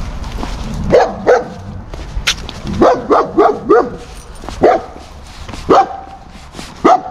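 A German Shepherd-type guard dog behind a fence barking at a passing dog, guarding its yard. About a dozen barks: a quick run of several around the middle, then single barks about a second apart.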